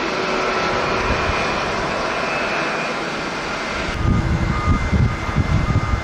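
Steady jet engine noise from a Boeing 787 airliner climbing out after takeoff, with a faint whine running through it. About four seconds in, gusty wind buffets the microphone with an uneven low rumble.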